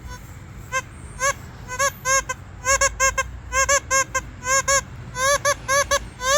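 Geese honking: a rapid series of short, arched calls that start about a second in and come thicker and faster as they go.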